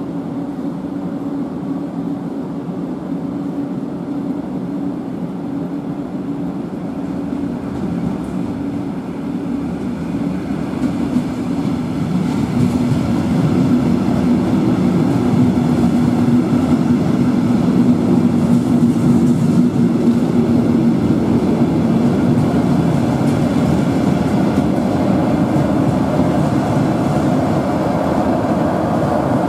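Metronom double-deck push-pull train rolling into the platform at low speed, led by its cab car, with a steady hum under the running noise. The wheel and running noise grows louder about halfway through as the coaches draw level and pass close by.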